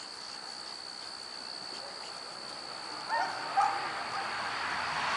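Four-week-old Kuvasz puppies give a few short whimpering yips about three seconds in, over a steady high-pitched drone of crickets. A hiss grows louder near the end.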